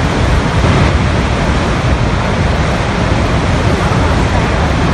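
Niagara Falls: a loud, steady rush of water falling and crashing at the foot of the falls.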